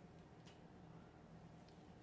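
Near silence: steady low room hum with a faint click about half a second in and another, smaller one near the end.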